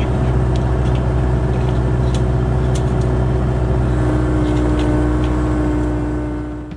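Kubota KX057-4 excavator's diesel engine running steadily, heard from the machine's own cab, with a few faint clicks; the sound fades out near the end.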